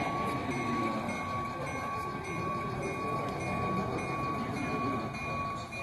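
Model train locomotive sound effects from the layout: a steady tone with a higher ringing note repeating about two or three times a second, over the hum of crowd chatter in the hall.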